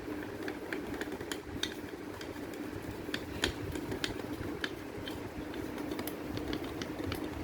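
A spoon clinking and scraping against a bowl while stirring glue and conditioner into slime, in irregular small clicks, over a steady low hum.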